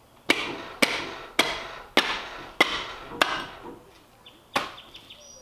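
Seven sharp chopping knocks from butchery work on a hanging carcass, about one every half-second with a longer pause before the last.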